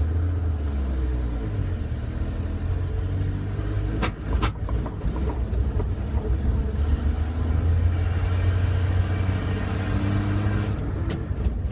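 Chevrolet C10 pickup's engine running steadily under way, with two sharp clicks or clunks about four seconds in, half a second apart.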